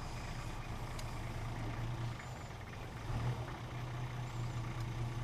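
A vehicle engine idling steadily, a low hum that grows a little louder about three seconds in.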